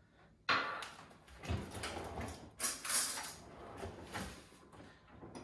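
Kitchen handling noises of making a mug of tea: an irregular run of knocks and rustles that starts abruptly about half a second in.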